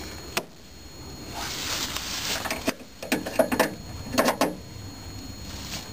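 A booster's jumper-cable clamp clicking and clattering against the van's metal while a better ground connection is sought. There is a sharp click early, a short rustle, then a run of rattling clicks a little past the middle and one more click near the end.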